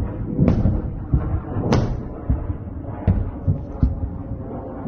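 A run of booms and thuds at irregular intervals over a low rumble, the sharpest crack about two seconds in: distant explosions in the night sky picked up by a phone's microphone.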